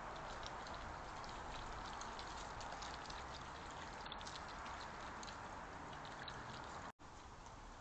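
Several European badgers feeding close to a trail camera: many faint, irregular crisp clicks of chewing and crunching food over the steady hiss of the camera's microphone. The sound drops out for an instant near the end.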